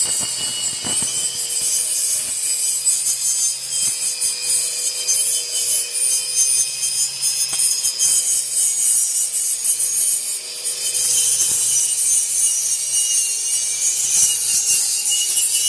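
Angle grinder grinding the slag off the back of a cut metal sign: a steady whine with a harsh hiss, dipping briefly about ten seconds in as the disc eases off the metal.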